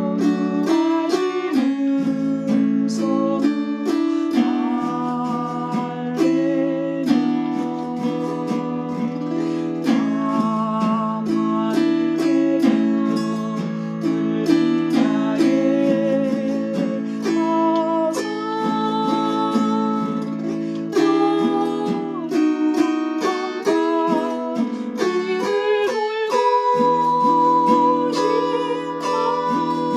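Chromaharp (autoharp) strummed chord after chord, with a sustained melody line carrying vibrato above the chords, playing the hymn tune.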